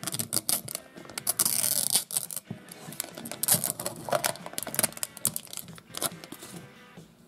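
Thin clear plastic film being peeled off the top of a small plastic toy tub, crinkling and crackling in irregular bursts, with a longer tearing peel between about one and two seconds in.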